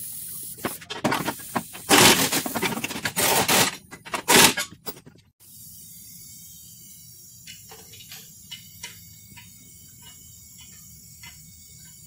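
Loud, irregular scraping and rustling for about five seconds, which stops abruptly. After that come scattered faint clicks and taps of gloved hands handling metal exhaust parts.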